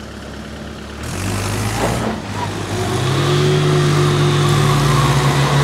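Tractor and Mahindra Scorpio engines revving up under load as the two vehicles pull against each other on a tow rope. The engine note steps up and grows louder about a second in, and again about three seconds in.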